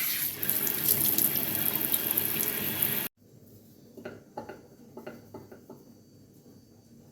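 Kitchen tap running into a sink, which stops abruptly about three seconds in; after it, quieter clinks and knocks of dishes.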